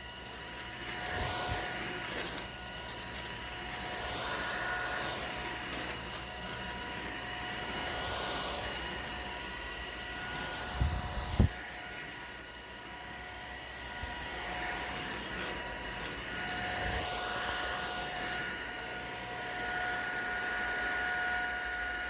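Tineco A10-D cordless stick vacuum running steadily: a rushing airflow with a constant whine, and two brief knocks about halfway through.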